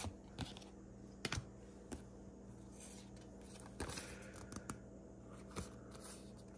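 Pokémon trading cards being flipped through by hand: a scattering of faint, irregular clicks and soft slides as each card's edge snaps past the next, over a low steady hum.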